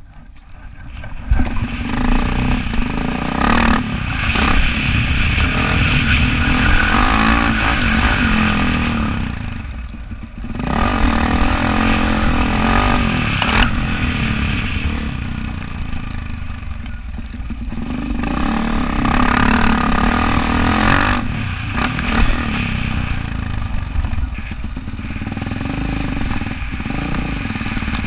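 Yamaha YZ450F dirt bike's single-cylinder four-stroke engine running under way. The throttle is rolled off twice, about ten and twenty-one seconds in, and then opened again.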